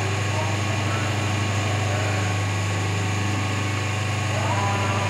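Hydraulic pump motor of an automatic plastic injection moulding machine running with a steady low hum.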